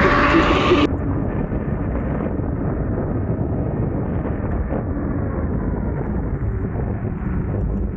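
Wind rushing over a camera microphone at riding speed on an electric scooter: a steady, muffled rumble. In the first second there is a brighter rush with a faint electric-motor whine, which cuts off suddenly.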